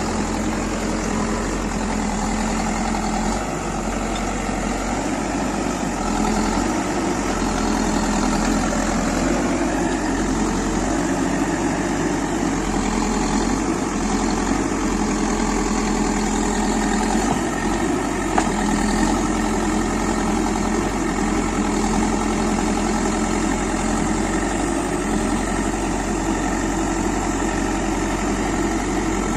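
Backhoe loader's diesel engine running steadily while it digs a drain, with small rises and dips in load and one brief knock about eighteen seconds in.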